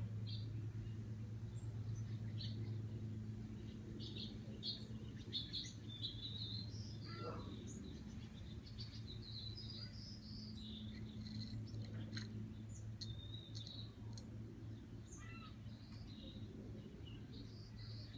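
Small birds chirping on and off, busiest through the middle stretch, over a steady low hum.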